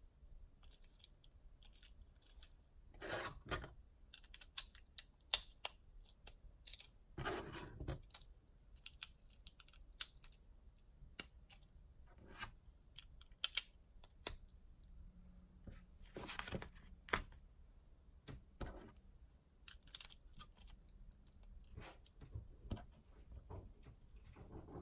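Plastic LEGO bricks being snapped together and loose pieces picked up from a wooden table: many sharp irregular clicks, with a few longer scraping rubs where pieces slide against each other.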